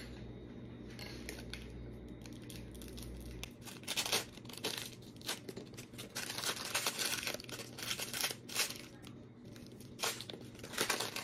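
Crinkly plastic wrappers of individually wrapped Rice Krispies Treats being torn open and peeled off, in quick crackling bursts that start about three and a half seconds in and continue.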